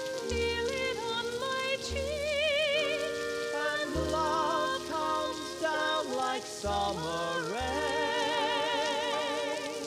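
Musical-theatre song with instrumental accompaniment: long sung notes held with vibrato over sustained chords and repeated low bass notes.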